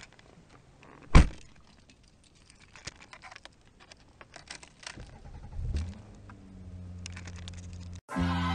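A car door shuts with a loud thud about a second in, then keys jangle and click at the ignition. About five seconds in the engine cranks and starts, and settles into a steady idle.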